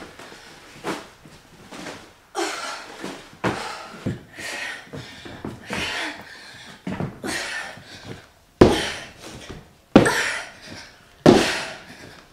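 Sandbag workout sounds: a series of sudden thuds and bursts every second or so, with the three loudest near the end.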